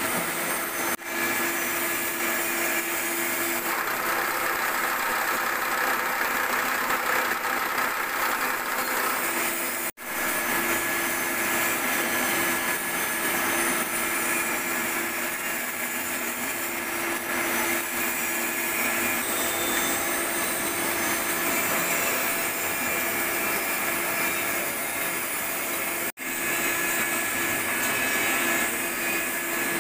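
Vertical milling machine running, its spindle turning the milling cutter as it cuts the flats of a hexagon nut blank: a steady mechanical whine with cutting noise. It drops out abruptly three times, briefly each time.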